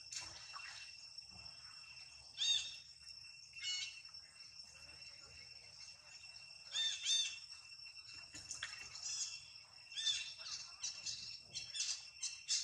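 Outdoor ambience of short, high, arched chirping calls, repeated a few times and loudest about two and a half and seven seconds in, over a steady high-pitched drone.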